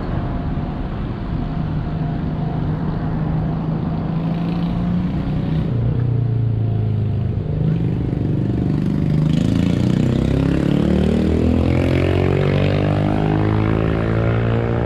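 Road traffic rumble, with a vehicle accelerating past from about six seconds in, its motor's pitch rising steadily for several seconds and then holding.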